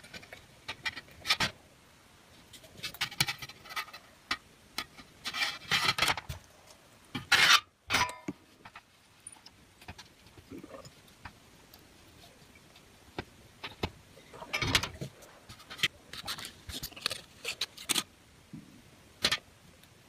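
A small printed circuit board and its wire component leads handled on a work surface: scattered clicks, rubs and light scrapes, with a louder clatter about seven and a half seconds in.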